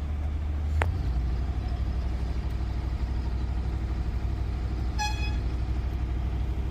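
A heavy engine running with a steady low drone, with a sharp click a little under a second in and a short, high horn beep about five seconds in.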